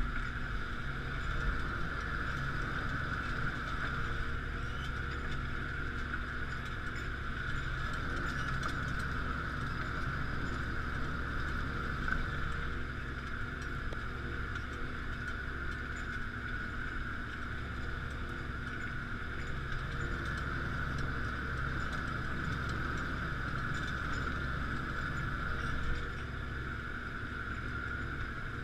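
Claas Axion 840 tractor running steadily under load while pulling a five-furrow plough, a low engine hum with a steady high whine over it.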